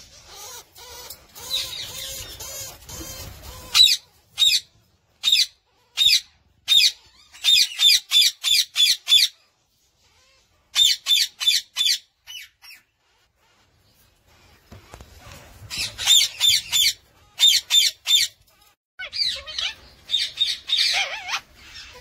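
White ringneck parakeet hen and her nestlings calling in a nest box. A steady call for the first few seconds, then runs of short, rapid squawks, several a second, in bursts with pauses of a second or two between them.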